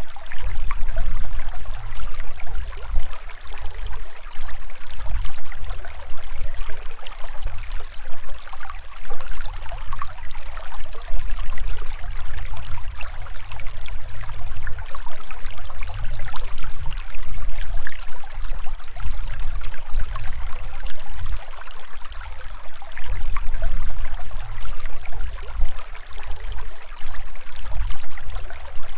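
Shallow stream rushing and splashing over rocks and stones, a steady watery hiss over a low rumble that swells and fades unevenly.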